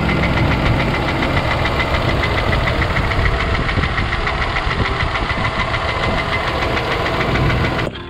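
Infiniti G35's 3.5-litre V6 running with a hard, rapid, steady knock from the bottom end, which the owner puts down to cut, damaged crankshaft bearings.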